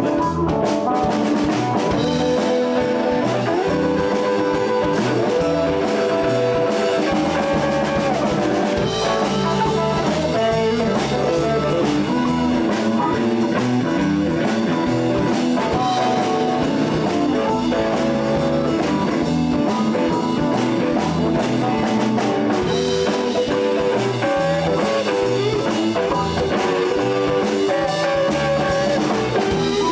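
Live blues band playing an instrumental break between sung verses: electric guitar over bass and drums, with notes bent up and down.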